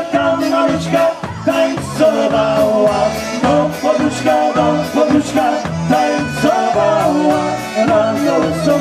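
Live polka band playing a polka with bass guitar, drum kit and saxophone, the bass alternating between two low notes on an even oom-pah beat under the melody.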